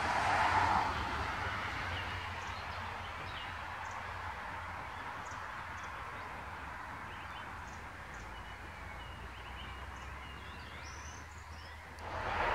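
Steady outdoor background noise with a few faint, scattered bird chirps. The noise grows louder suddenly near the end.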